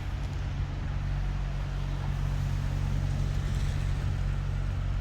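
Steady low engine rumble of a motor vehicle running, over a constant hiss of outdoor noise.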